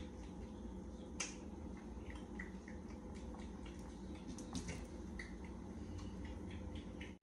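Faint scattered clicks and taps of a utensil against a pan of food on the stove, the sharpest about a second in and again midway, over a steady low hum.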